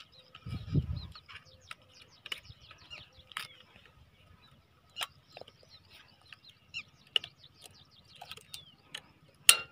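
Birds chirping and calling busily in the background, with a dull low thump about half a second in and a few sharp clicks of handling, the loudest near the end.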